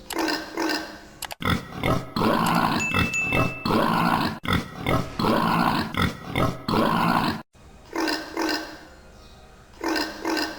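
Animal calls: short calls in pairs, then from about a second and a half in a louder run of repeated calls lasting about six seconds that stops abruptly, followed by more short paired calls.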